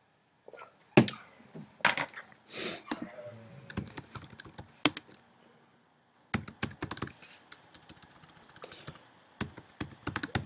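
Typing on a computer keyboard: a short run of keystrokes about a second in, a pause of a few seconds, then a second, denser run of keystrokes from about six seconds on.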